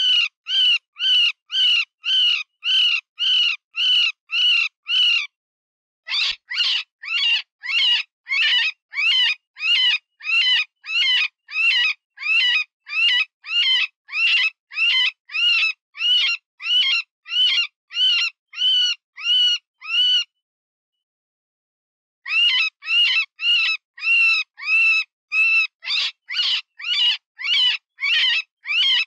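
Cottontail rabbit distress call, the squealing cry of a wounded rabbit used as a predator lure. Loud, high squeals, each rising and then falling, repeat about twice a second in long runs and break off twice, briefly about five seconds in and for about two seconds near twenty seconds in.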